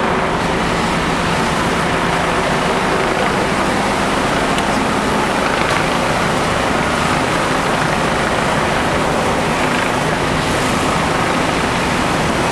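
Fire truck engines running steadily, a constant low drone under a continuous rushing noise.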